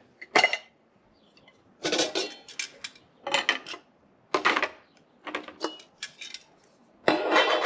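Metal pots, pans and windshield of a Trangia 27 cookset clinking and clattering as they are lifted apart and set down, in several short clusters of knocks, some with a faint metallic ring.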